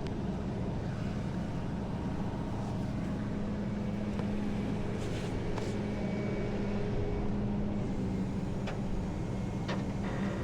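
Tow truck's engine running steadily, a low even drone with a few faint clicks over it.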